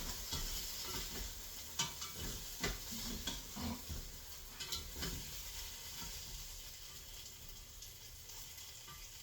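Chicken wings sizzling as they cook, with a few scrapes and taps from a spatula stirring them, mostly in the first half.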